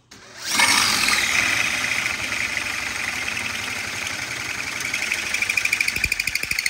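Hole saw in a Rogue Fabrication tube notcher, driven by a power drill, cutting a notch into a metal tube. The drill spins up about half a second in and the saw cuts steadily, with a rapid fluttering chatter in the last couple of seconds.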